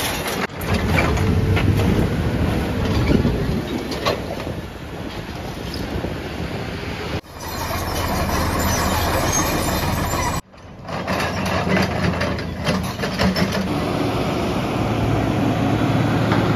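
Heavy demolition machinery: a Volvo tracked excavator's diesel engine running under load as its bucket breaks and shifts concrete rubble, with clattering debris and a few sharp crashes in the first seconds. Near the end a single-drum roller compactor's engine runs steadily.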